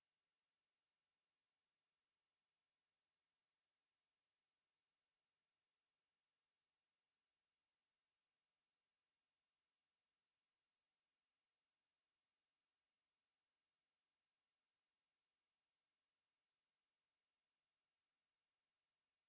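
A pure 11164 Hz sine test tone, one steady high-pitched note held unchanged, of the kind played to test speakers or shake water and dust out of them.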